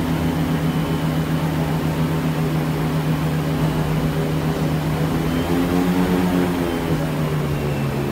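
Airboat's engine and air propeller running steadily as the boat moves over open water, the pitch rising briefly about six seconds in and then settling back.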